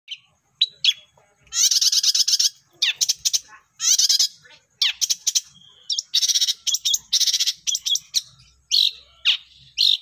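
Long-tailed shrike (pentet) singing: a varied song of short down-slurred whistled notes alternating with longer harsh, rasping chattering phrases, one after another with brief pauses.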